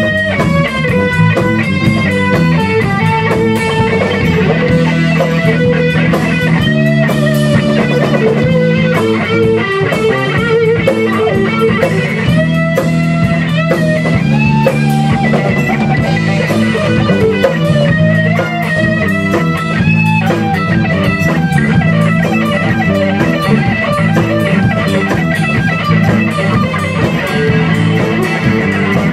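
Rock band playing an instrumental passage: electric guitars with a lead line that bends its notes, over a steady drum kit beat.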